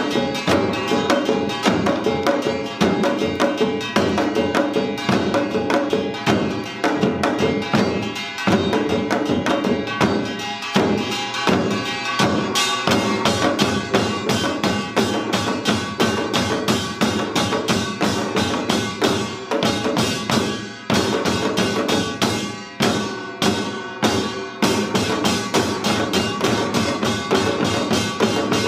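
Korean samul nori percussion ensemble playing Yeongnam rhythms seated: janggu hourglass drums and buk barrel drums struck in fast, dense patterns, with steady ringing tones under the strokes and a few short breaks in the middle.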